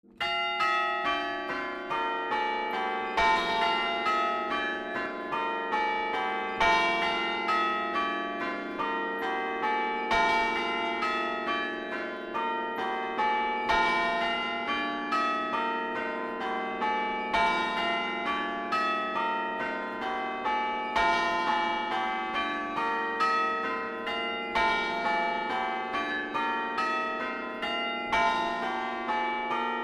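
Church tower chime bells ringing in a steady run of strokes, each note ringing on into the next, with a heavier, deeper stroke coming round about every three and a half seconds.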